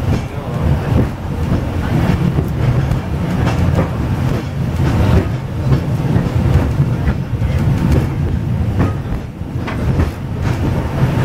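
Peak Tram funicular car running down its track, a steady low rumble of the car on the rails with a few faint wheel clicks.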